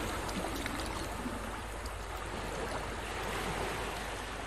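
Ocean surf ambience: a steady wash of waves with no other sound, easing slightly lower in level.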